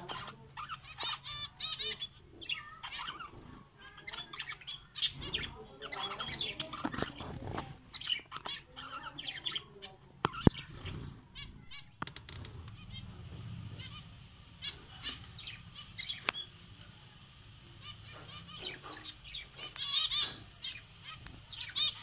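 Zebra finches calling in short, high chirps and beeps, with wing flutters. A sharp click about ten and a half seconds in.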